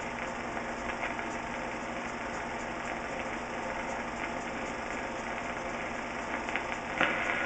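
Steady hiss and rumble with faint scattered crackles, the surface noise of an old film soundtrack, with no music playing.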